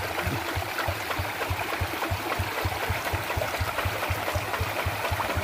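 Single-cylinder diesel engine of a two-wheel hand tractor idling with a steady low beat of about six thumps a second, over the rush of a shallow stream running over rocks.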